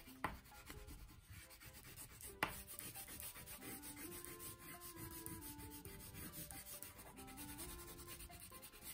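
Wax crayon rubbing back and forth on paper in steady scratchy strokes as an area is coloured in dark. Faint background music with a slow stepping melody runs underneath.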